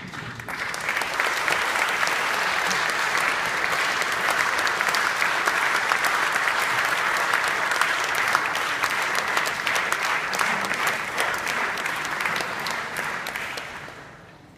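Audience applauding in a concert hall, swelling within the first second, holding steady, then dying away near the end.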